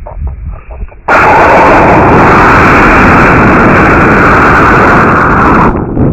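Model rocket motor igniting about a second in and firing as a loud, steady rush of noise for about four and a half seconds, picked up by a camera riding on the rocket so close that it overloads. It cuts off sharply at motor burnout, leaving wind noise as the rocket coasts upward.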